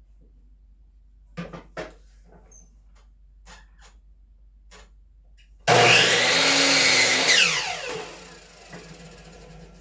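A few light knocks, then about six seconds in an electric power saw is switched on. It runs loudly for a second and a half and is released, its motor winding down with a falling whine.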